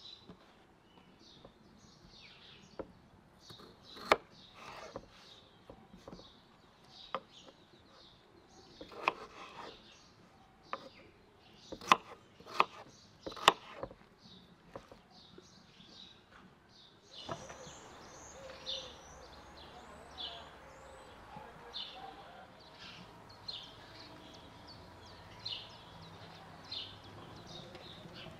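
A kitchen knife cutting peeled potatoes on a wooden cutting board: irregular sharp knocks of the blade on the board, with birds chirping. About 17 seconds in, a steadier background hiss sets in, and a bird chirps about once a second.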